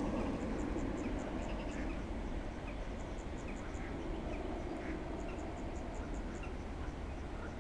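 Insects chirping in rhythmic groups of short, high pulses, with scattered lower chirps, over a steady low background noise.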